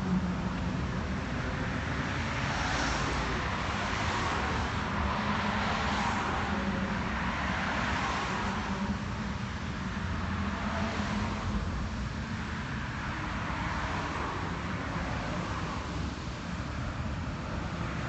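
Road traffic: cars driving past on the bridge roadway one after another, each passing as a swell of tyre and engine noise, over a steady low hum.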